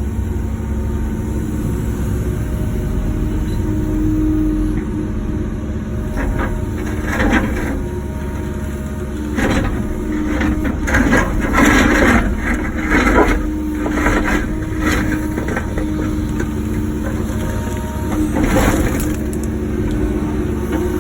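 Wacker Neuson ET145 excavator's diesel engine running steadily, with a series of crunching, scraping bursts through the middle as the bucket breaks up and digs out blacktop and concrete.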